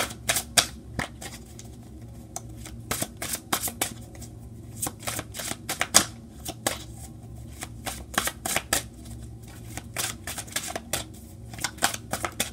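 A deck of tarot cards shuffled by hand: quick, irregular slaps and flicks of the cards against one another, coming in clusters.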